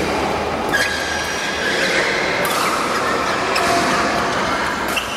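Badminton rally: rackets striking the shuttlecock in sharp hits a second or so apart, with shoes squeaking on the court floor over a steady noisy background.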